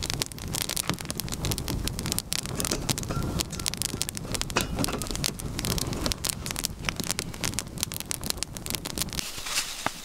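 Open wood fire burning, crackling and popping quickly over a low rushing noise.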